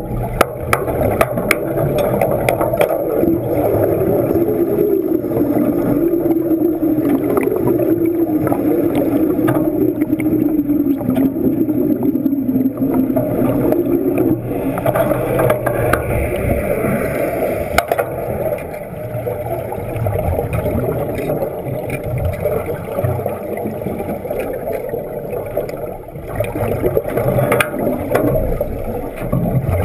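Underwater gurgling and rumbling of bubbles around a diver's helmet, with a low drone that slowly sinks in pitch over the first half and scattered clicks. About halfway through, a wet-welding arc is struck underwater and adds a hissing crackle.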